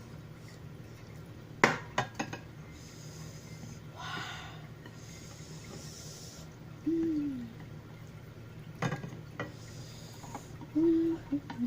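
Eating sounds: sharp clicks of a utensil against a bowl in two clusters, breathy slurping in between, and two short hummed "mm" sounds, the first falling in pitch.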